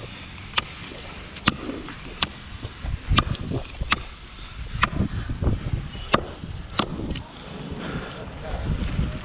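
Hand chopping strokes with a blade into a coconut palm trunk, cutting the front notch: a series of sharp chops, about one a second.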